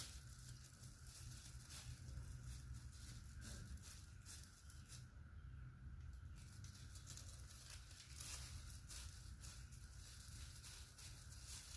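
Faint rustling and light clicks of handling, scattered throughout, over a steady low hum.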